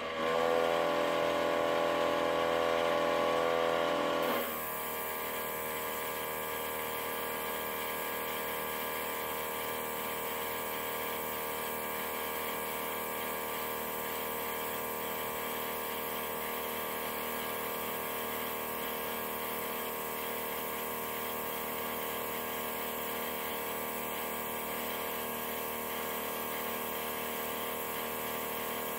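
Small airbrush compressor running with a steady hum. It is louder for about the first four seconds, then settles to a lower, even level.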